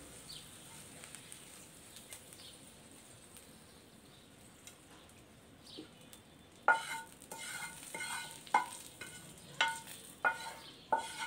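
Faint sizzle of hot oil with fried garlic and green chillies in a small pan, then from about seven seconds in a spatula knocks and scrapes against the pan about eight times, each knock ringing briefly, as the tadka is spooned out of the pan.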